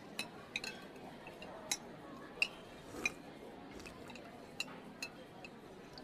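Cutlery clinking against dishes at a meal: irregular light, ringing clinks every half second or so, over a quiet steady background of room noise.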